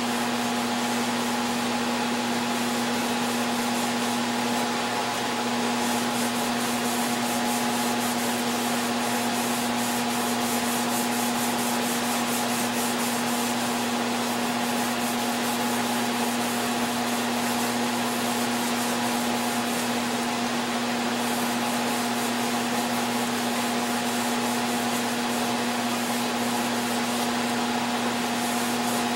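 Power sander running steadily on oak, a constant motor hum under the hiss of sandpaper on wood: sanding in preparation for the finish.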